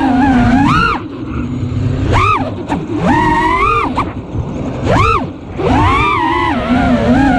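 FPV quadcopter's brushless motors (T-Motor F40 Pro IV, 1950 kV on 6S) spinning three-blade props, whining loudly; the pitch swoops up on throttle punches and drops away on throttle cuts several times, settling into a steadier tone near the end. Wind rushes on the onboard camera's microphone beneath it.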